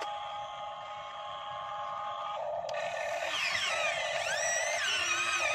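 Radio-controlled model excavator's electric motors whining: steady at first, then from about three seconds in the whine slides up and down in pitch as the boom and bucket work.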